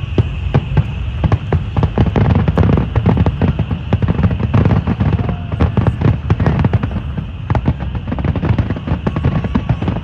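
Fireworks grand finale: a dense, rapid barrage of overlapping shell bursts and bangs over a continuous deep rumble, thickest through the middle of the stretch.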